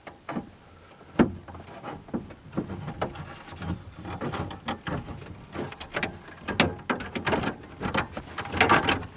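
Plastic instrument-cluster bezel being handled and fitted into a pickup's dashboard: a string of light clicks, knocks and rattles, with one sharper knock about a second in and busier clicking in the second half.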